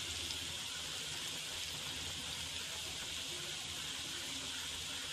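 Jalebi batter frying in hot oil in a shallow pan, with a steady sizzle as fresh batter is piped in.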